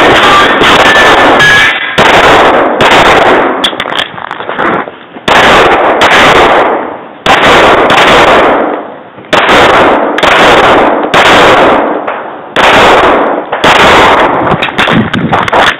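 Smith & Wesson M&P pistol firing rapid strings of shots close to the microphone, with brief pauses between strings.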